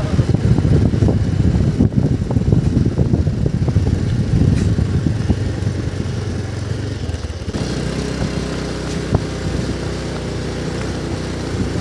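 Motorcycle engine running at low speed, rough and rumbling for about the first seven seconds, then settling into a steadier hum.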